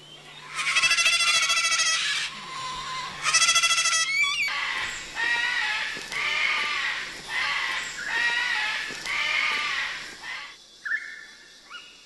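Moluccan cockatoo screaming while held by a wing: two long harsh screeches, then a run of about five shorter calls roughly a second apart, which break off about ten seconds in.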